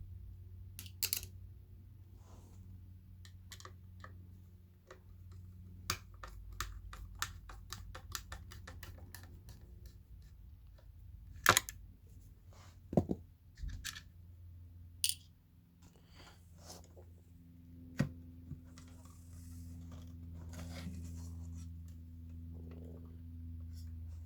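Scattered clicks, knocks and scrapes of hand tools and plastic parts as a subwoofer is taken apart, with a quick run of clicks about six to nine seconds in. A steady low hum runs underneath.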